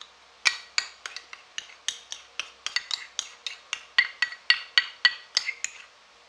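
A plastic spoon knocking against the inside of a ceramic bowl as ground red pepper is tapped out of it: a quick series of sharp clinks with a short ring, about three or four a second. The clinks start about half a second in and stop just under a second before the end.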